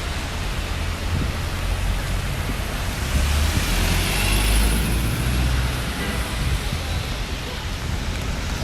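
Steady hiss of rain with gusts of wind buffeting the microphone as a low rumble, over the wash of street traffic.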